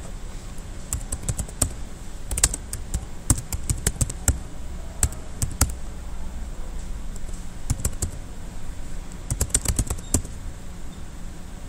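Typing on a computer keyboard: irregular bursts of key clicks as shell commands are entered, with pauses between the bursts, over a steady low hum.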